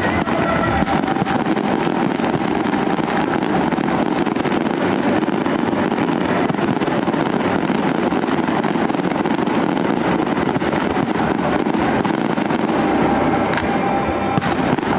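Fireworks display: a dense, unbroken barrage of aerial shell bursts and crackling stars, with many sharp reports close together.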